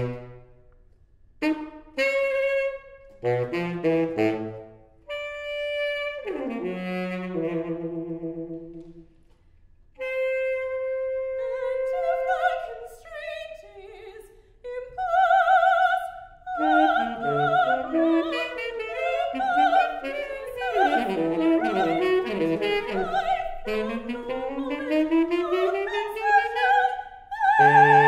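Saxophone and a woman's operatic singing voice performing together. Short separated notes with pauses come first, then a long held note about ten seconds in. From about halfway through the lines become denser and overlap, with slides up and down in pitch.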